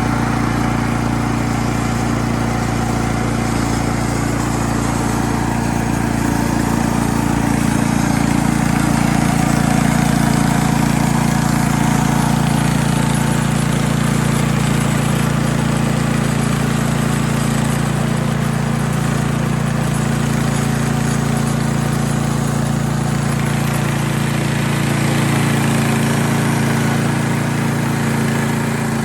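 Small gasoline engine of a Mechmaxx portable bandsaw sawmill running steadily.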